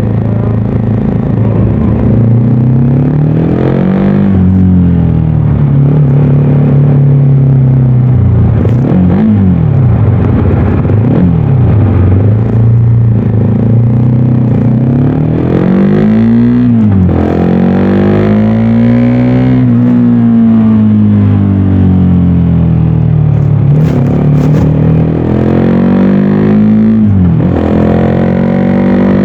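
Voge 300DS 300cc motorcycle engine and exhaust under hard acceleration: the engine pitch climbs, then drops sharply at each gear change, several times over, between stretches of steadier running and easing off.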